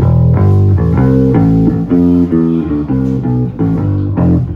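Amplified electric bass guitar playing a continuous line of single low notes, each changing roughly every third to half second.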